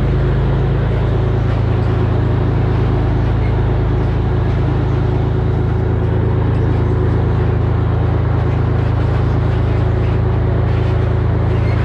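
Volvo N12 truck's diesel engine running steadily under way through its loud dual exhaust pipes, in a continuous low drone that steps slightly down in pitch about a second in. Wind noise rushes over it.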